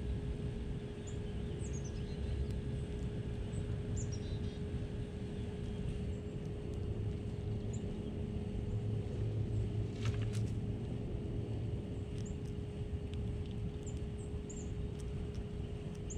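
Outdoor ambience: a steady low rumble under a faint steady hum, with short high bird chirps scattered throughout. A brief cluster of sharp clicks about ten seconds in.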